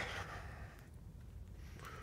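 A man breathing out in a soft sigh that fades within about half a second, then a faint low rumble.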